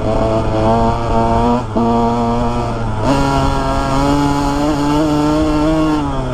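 2001 Honda CR125R's single-cylinder two-stroke engine running as the bike is ridden. Its note dips briefly just under two seconds in and steps to a new pitch about three seconds in.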